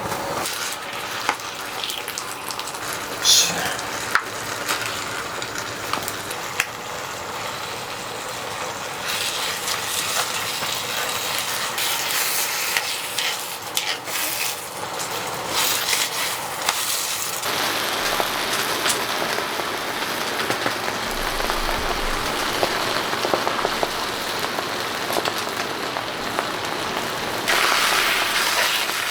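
Food sizzling in a frying pan, with a utensil stirring and clicking against the pan; the sizzle thickens about nine seconds in.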